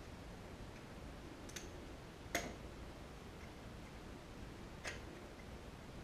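Three light clicks, the sharpest about two and a half seconds in, from hands and a screwdriver working at a Square D drum switch while a wire is connected to one of its terminals.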